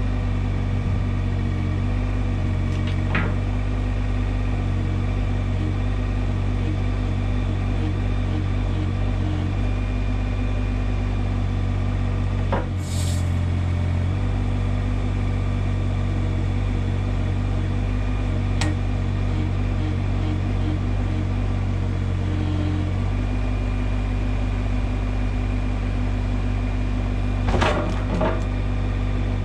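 IHI 20NX mini excavator's diesel engine running steadily while the machine works, with a few knocks and creaks. About halfway through there is a short hiss and the engine note briefly changes.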